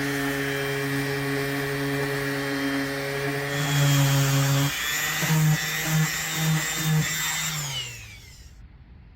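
Handheld electric tool motor running steadily with a high hiss, surging about twice a second for a couple of seconds. Near the end it is switched off and spins down, its pitch falling away.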